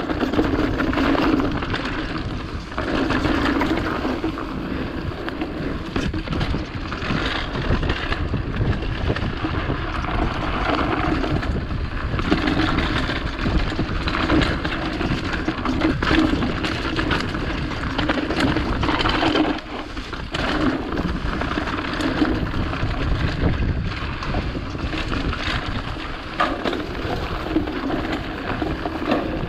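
Mountain bike running fast down a dirt singletrack: tyres rolling over dirt, stones and dry leaves, the chain and frame rattling with many short clicks over the bumps, and wind rushing on the microphone.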